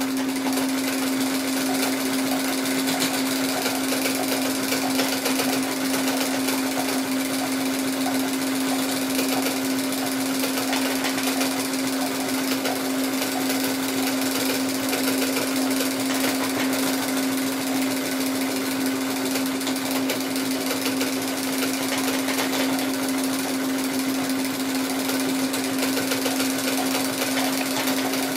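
Singer semi-industrial sewing machine running steadily, zigzag-stitching a cam buckle onto nylon webbing. A constant motor hum under a fast, even patter of needle strokes.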